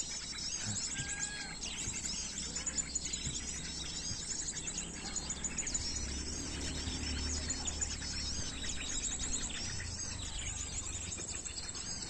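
Small birds chirping continuously in rapid, high calls, with a low rumble underneath.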